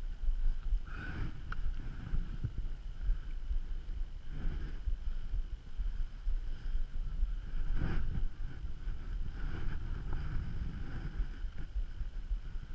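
Wind buffeting the GoPro's microphone in gusts, a steady low rumble with louder swells about one, four and a half and eight seconds in.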